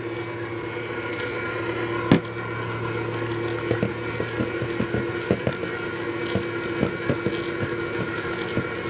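A metal balloon whisk clicking and scraping irregularly against a glass bowl as it stirs a thick chocolate cream, starting about three and a half seconds in, with one sharp knock about two seconds in. Under it, a steady electric hum from a stand mixer whipping egg whites.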